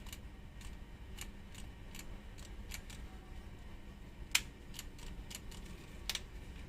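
Light plastic clicks and taps from handling a cordless drill and its battery pack, two sharper clicks in the second half; no motor runs, because the new 12 V Li-ion battery does not power the drill.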